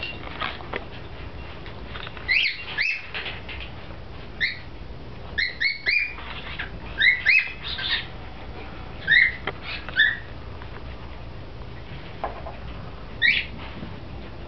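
African grey parrot making short rising chirps and whistles, mostly in pairs or small clusters, with a last single chirp near the end.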